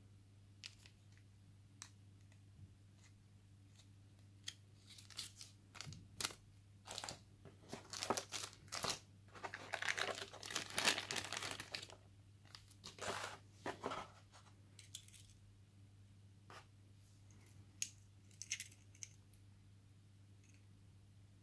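Plastic wrapping crinkling and cardboard packaging rustling as a phone headset is taken out of its box, in irregular bursts that are busiest in the middle, with a few small taps and clicks before and after.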